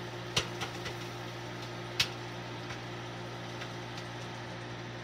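Oster microwave oven running with a steady hum while a bag of microwave popcorn pops inside: a handful of scattered pops, the loudest about two seconds in.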